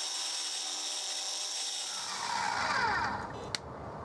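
Grizzly benchtop mini mill's spindle running with a steady high whine, then winding down with a falling whine between about two and three seconds in. A single sharp click follows shortly after.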